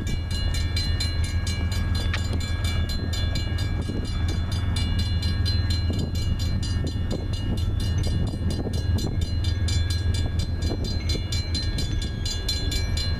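Railroad crossing warning bell ringing in rapid, evenly spaced strokes as the crossing gates come down for an approaching train, over a steady low rumble.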